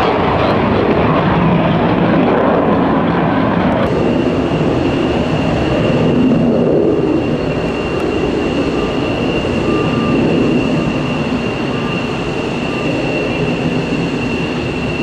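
Twin-engine F-15 jet climbing away after takeoff, a loud steady engine roar. About four seconds in the sound changes to F-16 jet engines on the runway: a steady high whine over a lower rushing roar.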